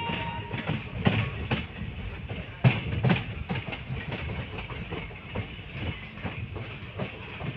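Passenger train running, heard from an open coach door: a steady rumble with the wheels clacking irregularly over rail joints and points. The loudest pair of knocks comes about three seconds in.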